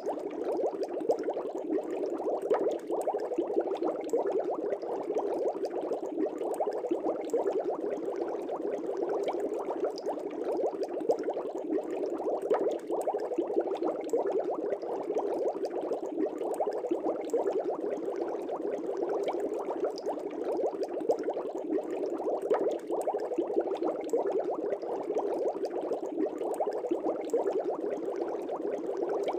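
Air bubbles rising and breaking in an aquarium, a continuous dense bubbling with many small rapid pops that holds steady throughout.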